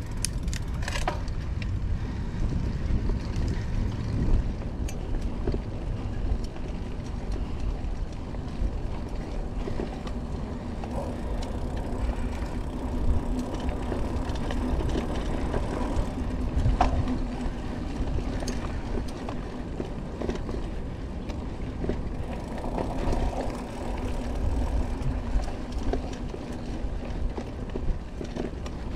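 Mountain bike riding along a packed-dirt trail: a steady rumble of tyres on dirt and wind on the microphone, with scattered knocks and rattles from the bike over bumps.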